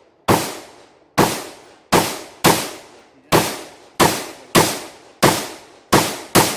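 Rifle shots fired in quick succession during a timed match string: about eleven sharp cracks, roughly one every half second to a second, each dying away quickly.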